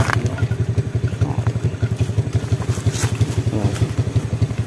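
Small engine running at a steady speed, with an even, rapid pulsing beat.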